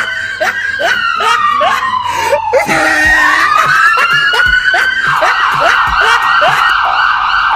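Fake police siren wailing: the pitch rises, falls slowly and rises again, then from about five seconds in it switches to a fast warbling yelp. A regular run of short rising chirps sounds underneath.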